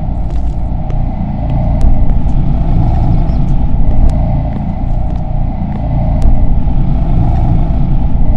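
A loud, steady low rumbling drone with a few faint scattered clicks.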